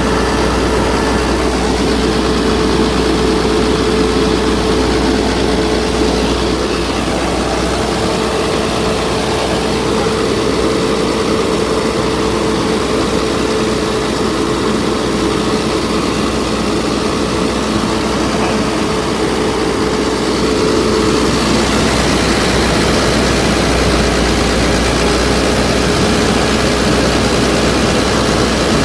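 A Keypower generator set's engine running steadily at a constant speed, with a steady hum through the engine noise.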